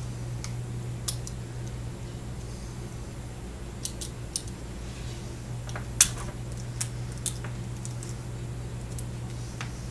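Scattered small clicks and taps of a smartphone's internal parts and tools being handled as its circuit board is lifted out, the loudest click about six seconds in, over a steady low hum.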